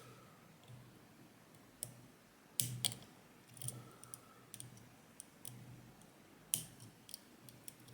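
Small, sharp metallic clicks of a lock pick and tension wrench working the pins in the keyway of a Yanai R high-pin-count lock, scattered and irregular, a few louder ones among many faint ticks.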